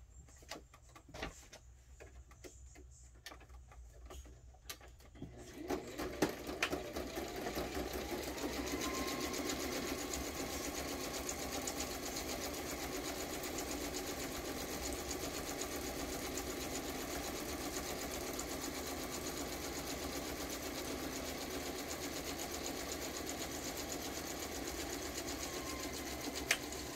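Sewing machine stitching a straight seam along the edge of a paper piece. It starts about five seconds in after a few light handling clicks, picks up speed over the first couple of seconds, then runs steadily and stops just before the end.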